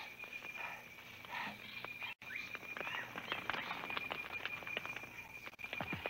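Outdoor field sound: a steady high-pitched insect drone, with scattered clicks, rustles and short chirps. The sound cuts out for an instant about two seconds in.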